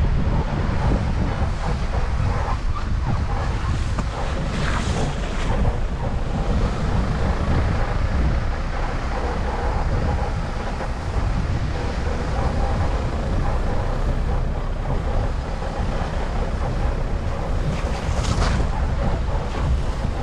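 Strong wind buffeting the microphone over the steady wash of ocean surf, with a hissing surge twice.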